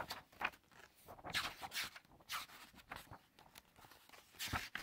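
Pages of a large hardback book being turned by hand: a run of paper rustles and swishes, with a louder one near the end.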